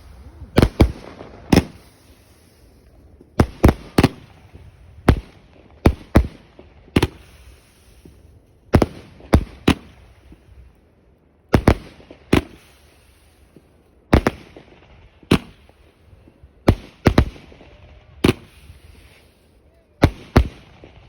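A Celtic Fireworks firework going off: a string of sharp bangs, many coming in twos and threes, with a faint hiss trailing after several of them.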